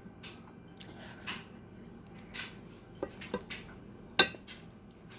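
Close-up eating sounds: wet chewing and mouth smacks in short, irregular bursts, with a sharp click about four seconds in.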